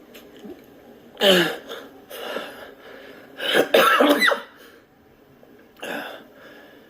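A man's choking spasms from intractable hiccups: four abrupt cough-like gasps with strained voice, the loudest about a second in and around four seconds in, one of them with a falling pitch.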